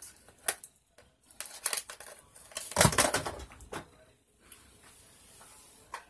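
Handling noises: a string of small clicks and rattles from cosmetic items being handled, with a louder knock about three seconds in as the phone filming is jostled and shifted.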